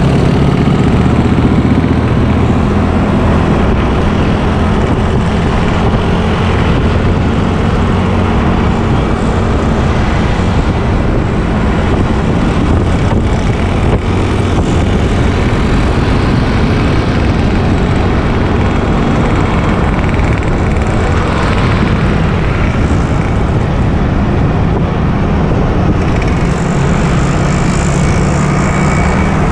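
Motorbike riding in traffic heard from a camera on the moving bike: steady wind noise over the microphone with an engine humming evenly underneath.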